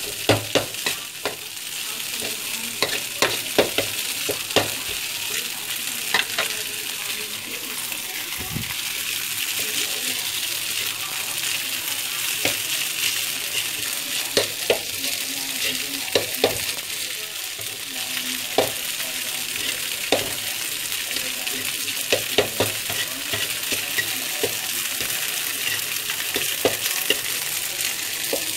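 Rice vermicelli stir-frying in a metal wok: a steady sizzle, broken by frequent sharp clacks and scrapes of a utensil against the pan as the noodles are tossed.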